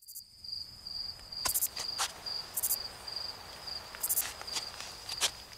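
Insects chirping: a steady, pulsing high-pitched trill, with several bursts of higher buzzing calls and a few sharp clicks.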